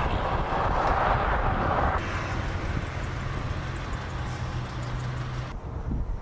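Highway roadside noise of passing traffic, a steady rushing hum that shifts abruptly about two seconds in and again near the end.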